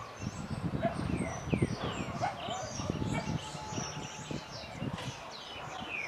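Blue-and-white swallows twittering: a stream of short, quick chirps, many sweeping downward in pitch, as in courtship soliciting. Underneath runs an irregular low rumble with a few thumps, loudest about one and a half seconds in.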